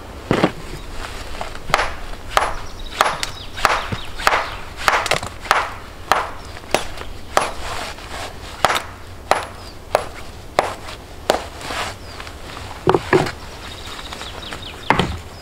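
Repeated strikes of a hand tool, about three every two seconds in an even rhythm. Near the end they pause, then come a close pair of knocks and one more.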